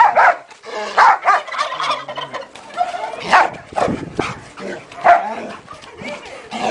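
A chicken squawking in a run of short, loud, irregular calls, mixed with a dog barking.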